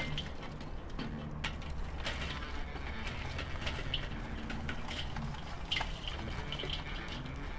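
Burning charcoal tipped from a chimney starter into a kettle grill, the pieces clattering and tinkling against the metal and each other in irregular clicks.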